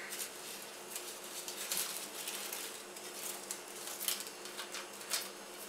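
Dry bay leaves crackling and rustling as a bunch is gathered up by hand from a plate, in irregular papery crackles.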